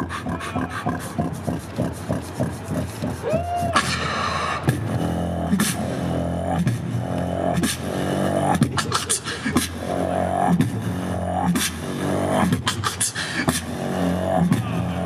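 Beatboxing through a microphone and PA: a steady beat of mouth-made kicks and snares, with pitched vocal sounds recurring about once a second from about five seconds in.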